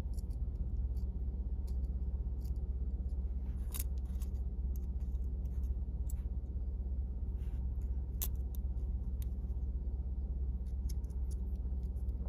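Scattered small metallic clicks and taps as the spring, socket and screw of a clipper blade are handled and lined up for the screw, the sharpest about four and eight seconds in, over a steady low hum.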